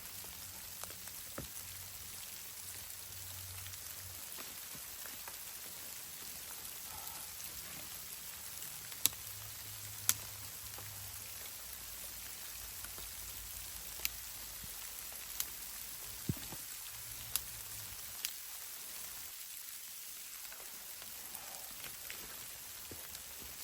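Steady soft hiss of falling precipitation with scattered sharp ticks, about eight of them, most in the middle of the stretch, like drops or ice pellets striking a surface.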